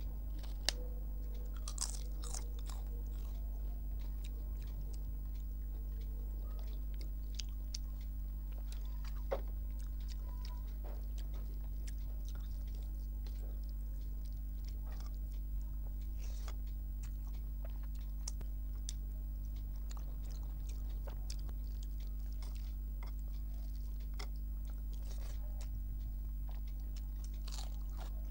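Close-up eating sounds: chewing and crunching bites, with scattered small clicks and smacks of a hand mixing rice and curry. A steady low hum runs underneath.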